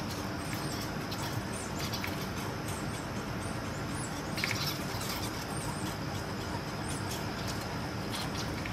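Short scratchy rasps and clicks from American red squirrels at a wire-cage bird feeder, the strongest about four and a half seconds in, over a steady low rumble with faint high chirps.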